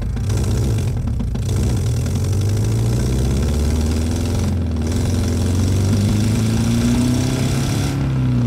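Synthesized inline four-cylinder engine (the Revvolution preset modelled on the Stoewer R200 Spezial) revving under throttle. Its pitch climbs slowly over several seconds, with the intake hiss breaking off briefly twice, then starts to fall back as the throttle comes off near the end.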